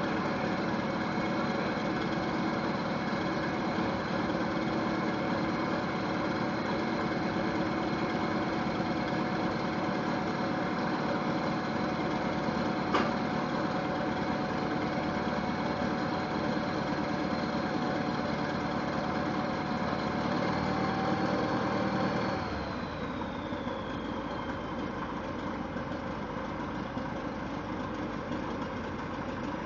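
Diesel engine of a Caterpillar 955L track loader running steadily as the machine crawls, with a single metallic clank about 13 seconds in. About 22 seconds in the deep rumble drops away suddenly and a high whine winds down, leaving a quieter engine idling.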